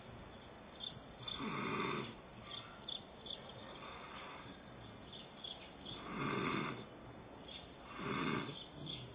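Snoring: three loud snores, each under a second long, the first about a second and a half in and two more near the end, with a softer breath between them.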